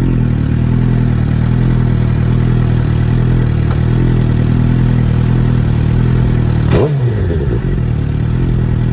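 A 2019 Suzuki GSX-R 750's inline-four engine, breathing through an M4 full exhaust system with the catalytic converter deleted, running steadily. Near the end comes one quick throttle blip: the pitch shoots up and falls back within about a second.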